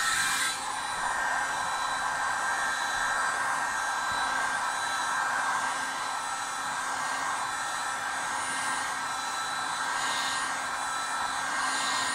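Electric heat gun running steadily: a fan's hiss with a few steady whining tones, dropping slightly in level about half a second in.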